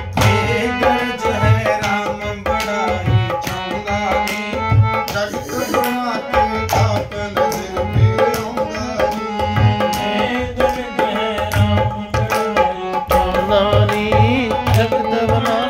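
Harmonium playing a devotional kirtan melody in held, reedy notes, with a dholak hand drum keeping a steady rhythm of deep strokes and sharp slaps.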